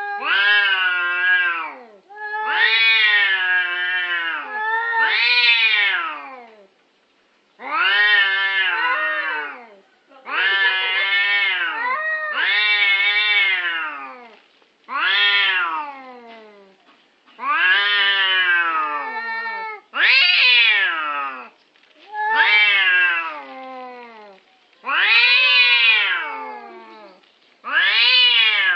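Cats yowling at each other in a territorial standoff: long, wavering wails that rise and fall in pitch, one after another with short pauses, the two voices sometimes overlapping.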